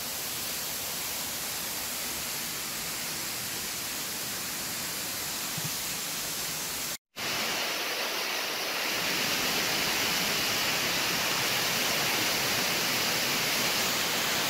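Waterfall swollen by heavy rain pouring into a mine entrance: a steady rush of water. About seven seconds in the sound cuts out for a moment and comes back louder and brighter.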